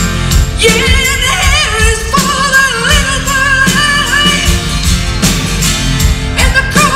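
A woman singing long held notes with a wide vibrato, coming in about half a second in, over a live rock band with acoustic guitars and drums.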